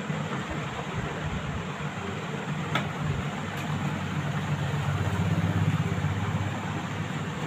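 Industrial sewing machine running and stitching cloth: a steady motor hum with a fast needle rattle, loudest about five to six seconds in.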